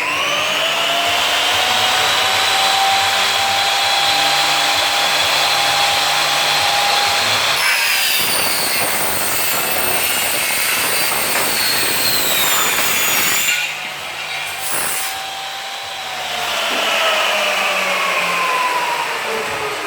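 Double-head aluminium cutting saw running: the circular blades' motors whine up to speed and hold a steady pitch. About eight seconds in, a harsher cutting noise joins with a slowly falling pitch as the blades cut through aluminium. It eases off after about thirteen seconds, and the whine builds again near the end.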